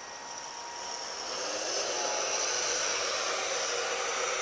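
Radio-controlled fishing boat's water-jet drive running under throttle: a high whine over rushing water, growing louder over the first second or two as the boat speeds up, then holding steady.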